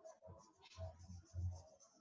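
Crayon scribbling on paper: repeated back-and-forth scratchy strokes, about two a second, each with a soft low thump against the table.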